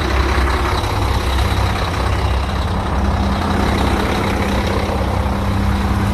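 Diesel semi truck engine idling with a steady low rumble, just after a cold start. A steady hum joins about three seconds in.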